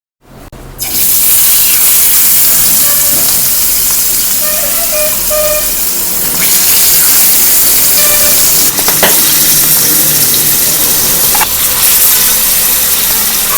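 Fish pieces frying in hot oil: a loud, steady sizzle that starts about a second in, with a few brief crackles.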